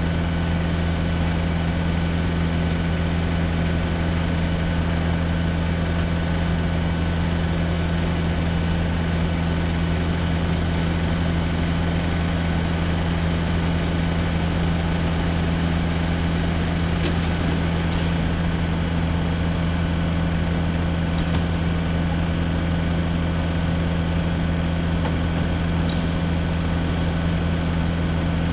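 Nissan NT400 truck's engine running steadily at a constant speed, powering the hydraulics of its Socage boom lift as the boom lowers.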